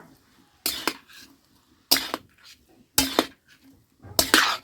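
Metal utensil clanking and scraping against a cooking pot, four separate clatters about a second apart, the last a quick cluster near the end.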